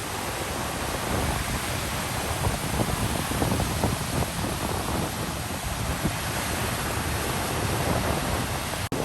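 Ocean waves washing on the shore in a continuous steady hiss, with wind buffeting the microphone in low gusts. A split-second dropout cuts the sound near the end.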